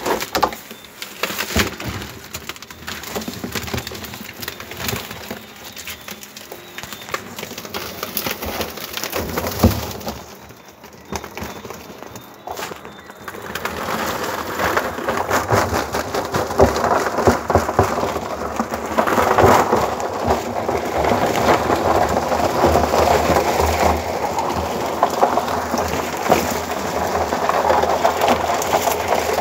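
Live crabs being tipped from a woven sack into a plastic barrel: a dense crackling clatter of shells and legs scraping against each other and the plastic, with the rustle of the sack. It grows louder and thicker about halfway through as the crabs pour in.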